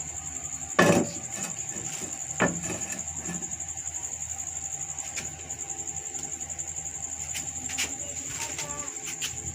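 Crickets trilling steadily, a fast pulsing high chirr, with two sharp knocks about a second in and again near two and a half seconds, and a few faint clicks later.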